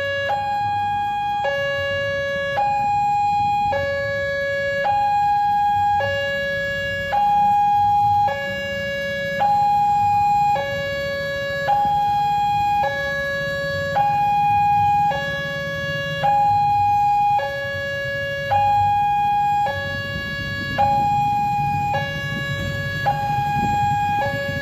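Railway level-crossing warning alarm on a new WANTECH LEN crossing, sounding an electronic two-tone signal: a higher and a lower tone alternating, each held about a second. The barrier is down, warning of an approaching train.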